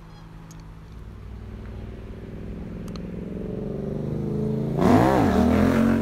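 A motor vehicle's engine draws steadily closer and louder, then passes close about five seconds in with a brief rise and fall in pitch and a burst of road noise.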